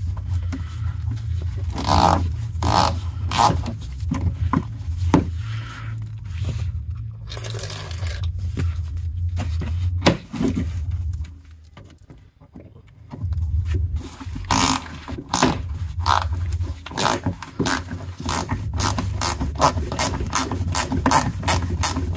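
Hand ratchet clicking as it drives a screw back into the plastic underbody panel of a car's front bumper area, in irregular strokes at first, then rapid even clicking near the end. A steady low hum runs underneath and drops away briefly in the middle.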